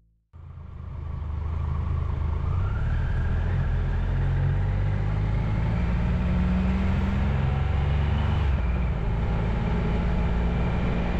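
Motorcycle engine running on the move, with heavy wind rush on the microphone, starting suddenly after a moment of silence; the engine note rises as the bike picks up speed about two seconds in.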